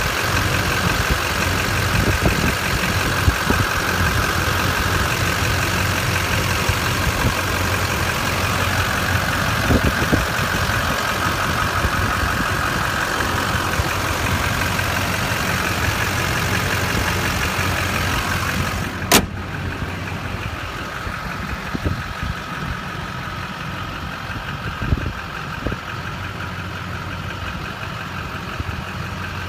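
A 6.6-litre Duramax turbo-diesel V8 idling steadily, heard from above the open engine bay. About two-thirds of the way through comes a single sharp knock, after which the idle sounds quieter and duller.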